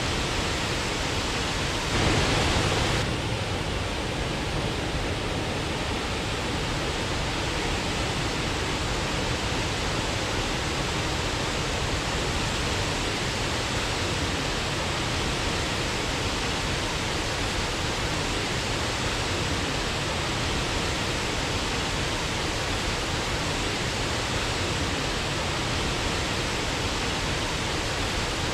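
Waterfall rushing as a steady, even wash of water noise. About two seconds in it gets louder and brighter for a second, then drops back abruptly.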